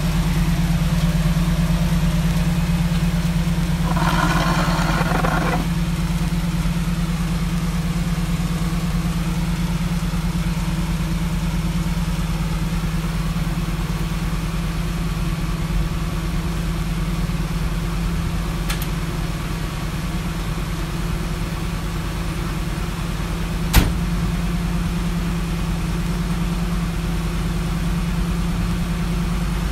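1955 Chevrolet pickup's engine idling steadily, warming up after a cold start. About four seconds in a brief noisy rustle lies over it, and a single sharp knock comes a little before the end.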